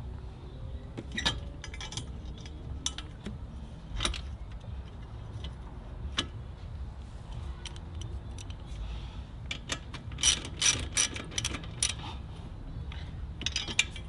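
Hand ratchet clicking in short spells as bumper bolts are run into the ATV's frame, with a quicker, louder run of clicks about ten seconds in.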